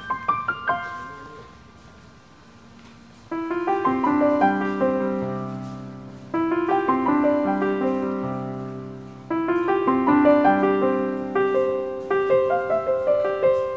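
Background piano music: a gentle piece of rolling arpeggios, with a fresh chord struck about every three seconds.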